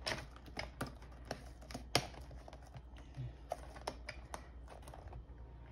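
Plastic laptop keys and keyboard deck of a replacement ThinkPad P52 keyboard clicking irregularly under pressing fingers as the keyboard is pushed down and seated into its frame. The clicks thin out after about four seconds.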